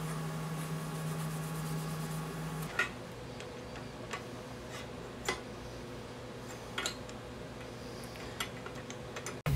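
Light metallic clicks and taps from a hex key and aluminium bracket being worked on a 3D printer's bed carriage, coming singly about once a second. A steady low hum stops about a third of the way in.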